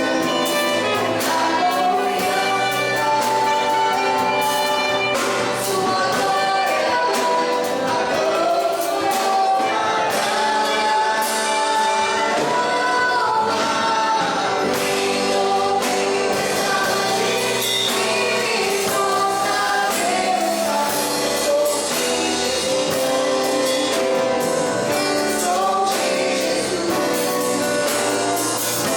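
Gospel worship song: several voices singing together over instrumental backing with a steady beat.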